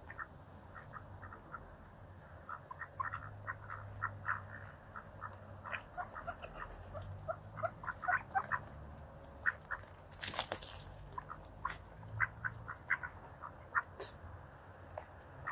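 Mallards feeding at close range: a quick, irregular run of short clicks and soft duck sounds from bills picking at food on the ground. There is a brief rush of noise about ten seconds in.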